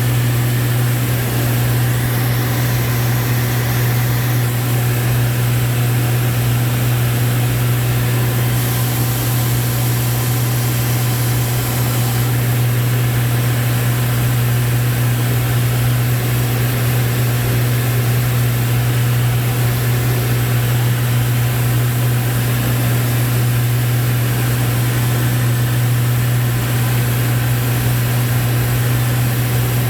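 Steady in-flight cabin drone in a Lancair IV-P: engine and propeller noise with a strong, unchanging low hum under an even rush of airflow.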